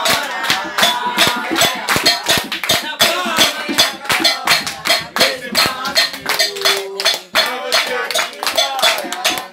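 Live samba de roda: voices singing together over a steady, driving rhythm of hand claps and shaken percussion.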